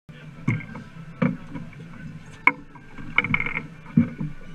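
Irregular knocks and clatter of gear being handled on a fiberglass fishing boat's deck, with a quick run of rapid ticks a little past three seconds in, over a steady low hum.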